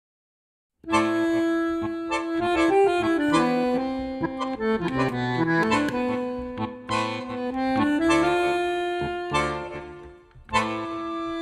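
Instrumental music starting about a second in: a slow melody of held notes over sustained chords, dipping briefly near the end before coming back in.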